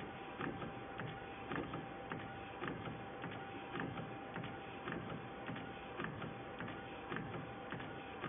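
EraSmart A3 DTF printer printing on roll film: the printhead carriage shuttling back and forth with a steady motor whine and a regular click about twice a second.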